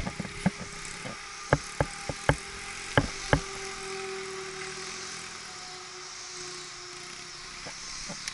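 Dirt bike engine running faintly with a steady hum that fades out near the end, under a run of about nine sharp clicks or knocks in the first three and a half seconds.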